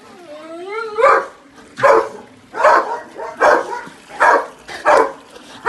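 A dog gives a short whine that rises in pitch, then barks over and over, about one bark every three-quarters of a second, six times.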